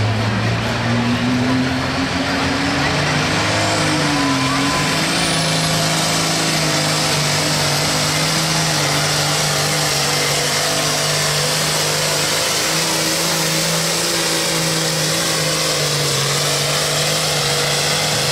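Turbocharged diesel engine of a Farmall limited pro stock pulling tractor running flat out under load as it drags the sled, a steady loud drone. A high whistle rises about four seconds in.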